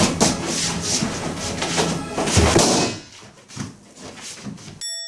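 Background music with heavy thumps as a rubber balloon is squeezed and knocked about, the loudest about two and a half seconds in. The music drops out around three seconds in, and near the end a bright bell-like ding rings out and slowly fades.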